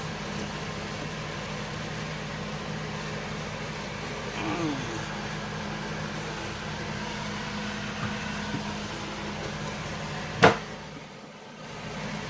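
A steady low mechanical hum, with a short gliding sound about four and a half seconds in and a single sharp click about ten and a half seconds in.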